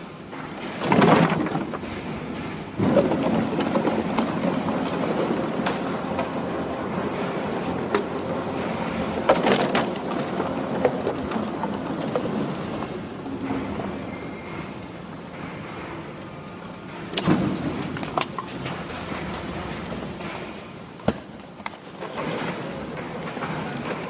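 Empty PET plastic bottles clattering and rattling as they tumble along a conveyor feeding a horizontal baler, over the steady running of the machinery. Several louder knocks stand out through the clatter.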